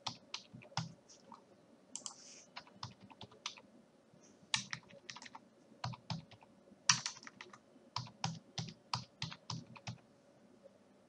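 Typing on a computer keyboard: irregular key clicks with short pauses, stopping near the end, over a faint steady hum.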